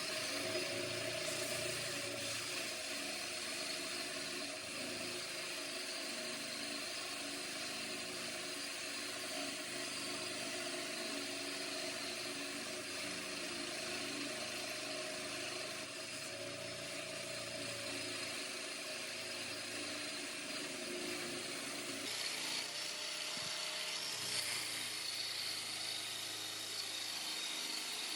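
A small power-tool motor running continuously with a steady whine, as if used to spin a workpiece for turning. Its tone changes about 22 seconds in, as the load on it shifts.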